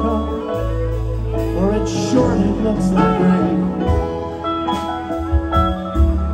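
Live band playing, with electric guitar, pedal steel guitar, keyboard, bass and drums. A steady bass line runs under held and gliding higher notes.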